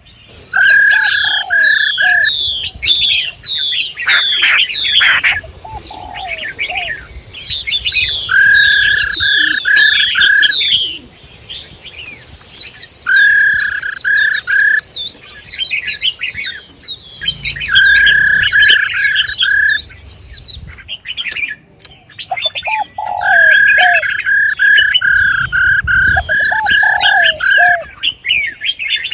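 Female songbird calls: bouts of two to three seconds, each a run of even repeated whistled notes under dense, fast, high chirps and twitters, with short gaps between the bouts.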